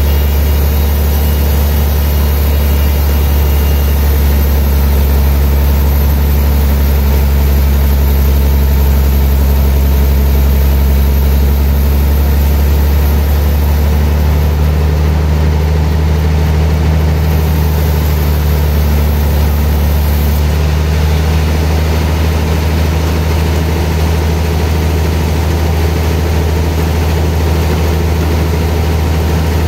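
Sawmill machinery running steadily, a loud, unbroken low hum with a steady mechanical tone throughout.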